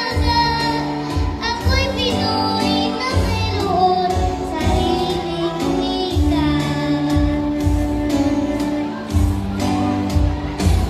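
A young girl singing into a microphone over backing music, amplified through a PA sound system, her held notes wavering with vibrato.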